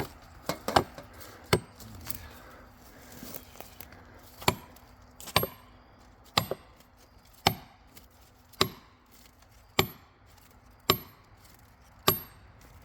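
Hammer blows on a steel felling wedge, each a sharp strike with a metallic ring: a few quick blows, then steady strikes about once a second. The wedge is being driven into the cut to tip a felled oak over.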